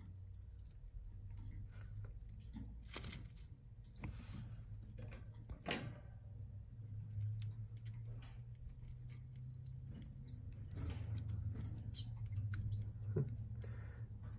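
Coleiro (double-collared seedeater) nestling's thin, high-pitched begging squeaks as the male feeds it at the nest. The squeaks are sparse at first and come several a second over the last few seconds, with a few soft rustles and a low steady hum underneath.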